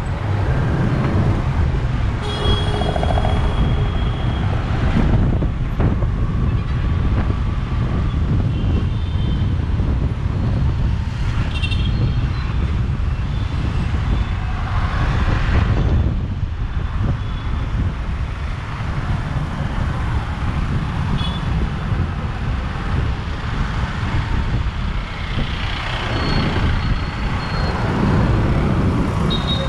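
Motorcycle riding slowly through busy town traffic: a steady heavy rumble of engine and wind, with motorbikes, tuk-tuks and trucks passing close. A few brief high tones are heard a couple of seconds in, again around the middle and near the end.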